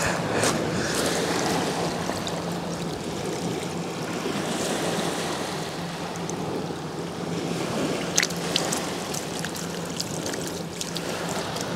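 Small waves lapping steadily on a shingle beach, with a faint steady low hum throughout and a few light clicks. Near the end, water is tipped from a plastic bucket onto the sand.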